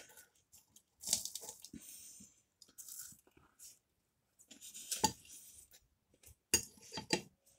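Metal knife and fork scraping and clinking on a plate as a puff-pastry pork roll is cut, in several short bursts, mixed with crunchy chewing of the flaky pastry.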